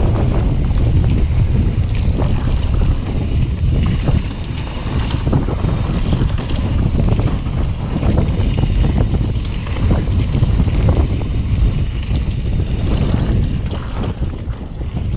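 Wind buffeting a GoPro's microphone while riding a mountain bike fast along a dirt trail. A constant low rumble is mixed with tyre noise and many small knocks and rattles from the bike over the rough ground.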